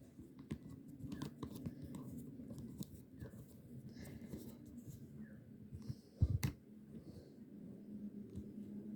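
Clicking and scraping, as of a plastic toy being handled, over a low steady hum, with a single loud thump about six seconds in.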